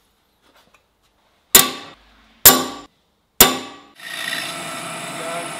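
A hammer striking a centre punch three times on the O1 steel knife blank, each strike sharp with a brief metallic ring. About four seconds in, a Bridgeport milling machine's spindle starts running with a steady whine while the drill is fed into the blank for the handle-pin holes.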